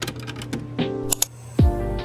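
Lo-fi hip-hop style background music: soft sustained chords over short clicky percussion, with a deep kick drum dropping in pitch about one and a half seconds in.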